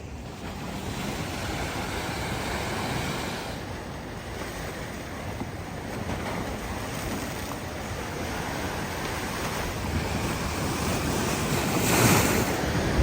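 Steady rushing noise of wind and water, heaviest in the low end, swelling to its loudest about twelve seconds in.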